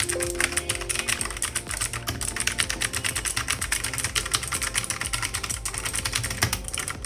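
Fast continuous typing on a Cosmic Byte CB-GK-07 mechanical keyboard: a dense, rapid clatter of key clicks and key bottoming-out. It is the noise these keys make, loud enough to irritate people nearby.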